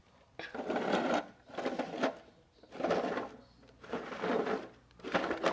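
Repeated rustling, rattling handling noise, about one burst a second, starting about half a second in.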